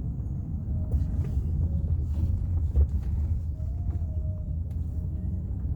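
Wind buffeting the microphone: a low, uneven rumble that rises and falls.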